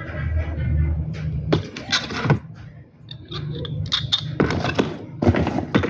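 Metal clinking and rattling in three short clattering bursts over a low hum that drops out about a second and a half in and comes back partway through.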